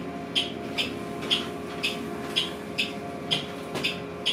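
Cabin sound of a New Flyer XHE40 hydrogen fuel-cell electric bus moving slowly: a steady hum of several held tones, with a regular sharp ticking about two times a second.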